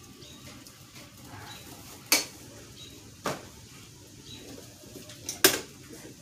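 Sharp clacks and knocks from a pigeon basket being handled as a racing pigeon is put in: four in all, two of them close together near the end, the last the loudest.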